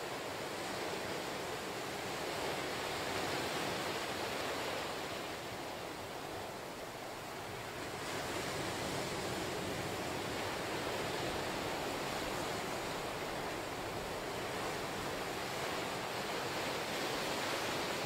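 Ocean surf: small waves breaking and washing up over a sandy beach between lava rocks. It makes a steady rushing wash that swells and eases with the waves, with a lull about six seconds in.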